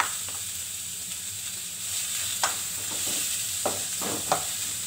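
Chopped onions sizzling in hot oil in a metal pan, stirred with a wooden spatula that knocks and scrapes against the pan several times.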